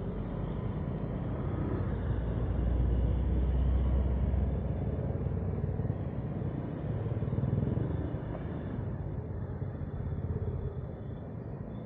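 Motor scooter riding through slow city traffic: a steady low rumble of engines and road noise that swells a few seconds in and again later.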